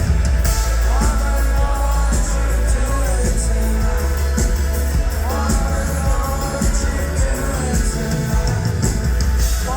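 Live pop-rock band playing loudly, with heavy bass, drums and a singing voice.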